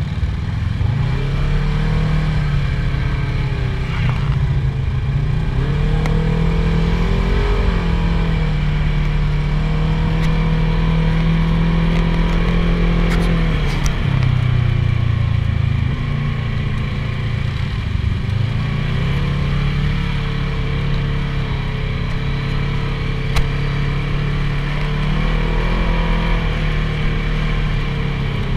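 A side-by-side UTV's engine running under way on a muddy trail, its pitch rising and falling over and over as the driver works the throttle.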